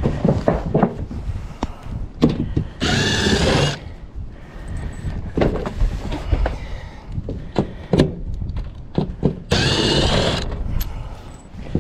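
Power drill backing out metal roofing screws from a steel ridge cap, in two bursts of about a second each: one about three seconds in and another near the end. Scattered knocks and clicks of metal fall between the bursts.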